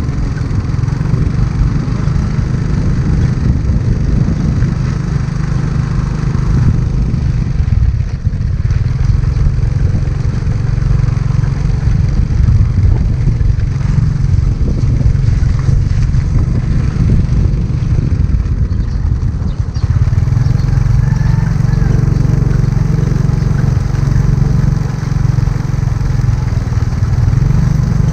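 Motorbike engine running steadily while riding, with wind rumbling on the microphone.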